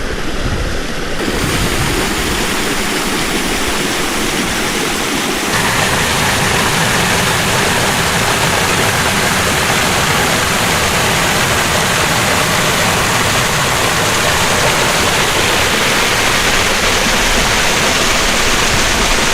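Seasonal waterfall, water rushing steadily; the sound grows fuller about five seconds in.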